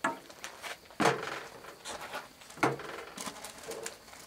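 A spatula stirring and mashing potatoes in an enamel pot, with three sharp knocks of the utensil against the pot, the loudest about a second in, and soft scraping between them.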